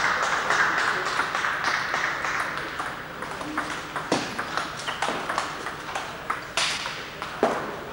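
Table tennis balls being played: irregular sharp clicks of the celluloid ball on bats and table tops, from the rally at hand and from other tables in the same hall. Hall noise hums beneath, thicker for the first few seconds.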